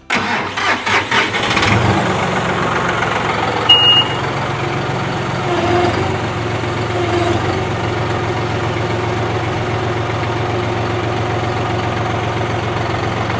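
John Deere 5075E tractor's diesel engine cranking for under two seconds, catching and settling into a steady idle. A short high beep sounds about four seconds in.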